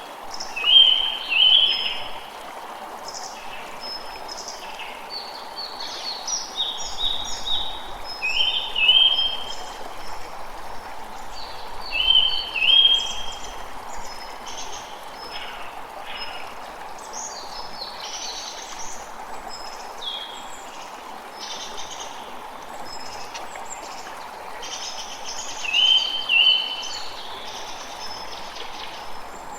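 Forest ambience: birds singing in short chirping phrases, the loudest coming four times, over the steady rush of a stream.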